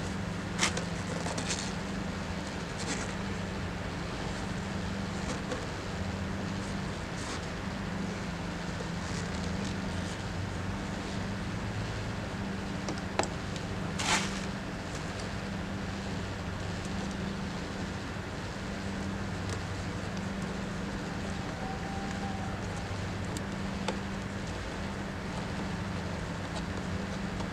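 A steady low mechanical hum with a light background hiss, broken by a few short clicks or taps, one about half a second in and two close together about 13 to 14 seconds in.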